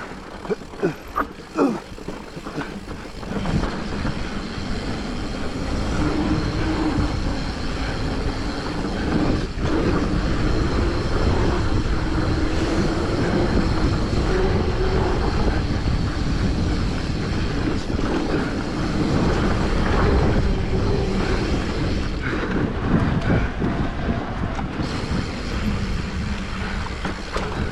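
Mountain bike ridden down a rough trail: a steady rumble of wind and tyre noise on a GoPro's microphone, with a few sharp rattles in the first couple of seconds.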